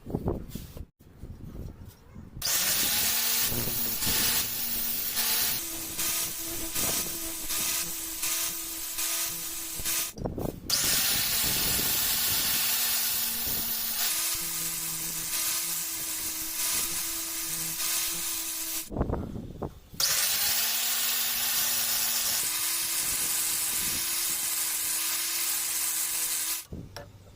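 Electric grinder working the steel of a chisel being reshaped into a punch, switched on three times for runs of several seconds each. Each run is a loud, hissing grind over a steady motor hum, and the motor spins up at the start.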